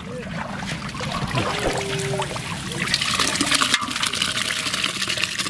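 Hundreds of small mola fish and water pouring out of a bamboo cage trap into a net-lined basket: a dense wet pattering and splashing that gets louder about three seconds in.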